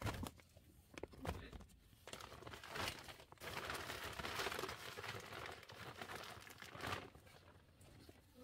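A woven plastic sack rustling and crinkling in bursts as it is handled and gathered shut. There are a couple of knocks at the start as chayotes go into it.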